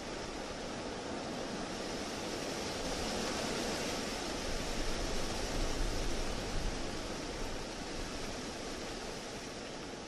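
Strong wind blowing in a steady rush. It swells into a stronger gust with low rumble a little past the middle, then eases off toward the end.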